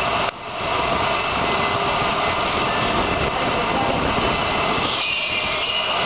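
Manual chain hoist being hauled by its hand chain: the steel chain rattles and clanks steadily through the block, over loud steady industrial machinery noise. Near the start the sound briefly drops out for a moment.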